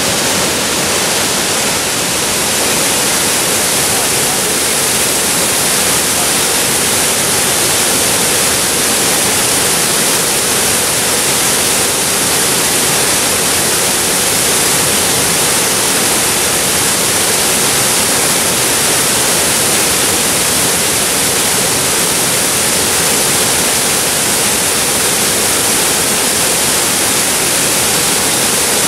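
A waterfall running steadily: a constant, even rush of falling water that does not change for the whole stretch.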